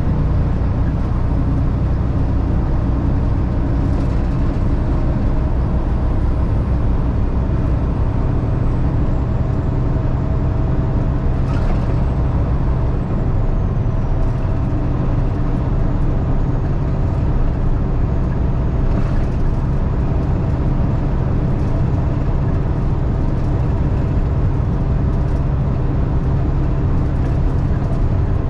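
Peterbilt 579 semi truck's diesel engine and road noise heard inside the cab while cruising on the highway: a steady low drone, with a few faint clicks.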